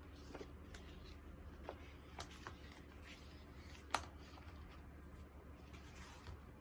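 Quiet handling of paper and packaging: scattered soft rustles and light taps, with one sharper click about four seconds in, over a faint steady room hum.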